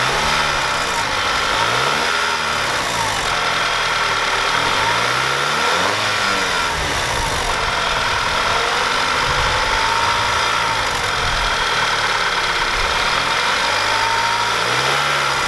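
Audi TT Mk2's turbocharged 2.0 TFSI (EA888) four-cylinder engine idling and being blipped about four times, the revs rising and falling each time. A rattle comes in as the revs drop, which the owner suspects is the timing chain or its tensioner; the uploader later suspects turbo wastegate rattle.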